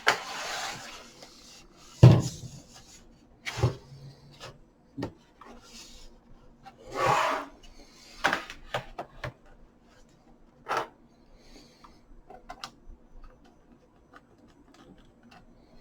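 Handling noise from a plastic laptop case being worked on at a bench: scraping and rubbing with scattered knocks and clicks, the loudest a knock about two seconds in.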